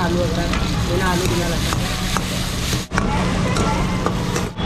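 Vegetables sizzling and frying in a wok, stirred with a metal ladle that clinks and scrapes against the pan now and then. The sound drops out for a moment twice near the end.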